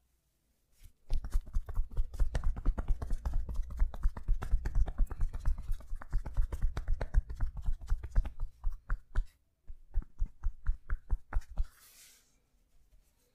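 Percussive massage: hands rapidly tapping on the body, a fast dense run of soft, thudding strikes for about eight seconds, then a short pause and a sparser run of taps that stops about two seconds before the end.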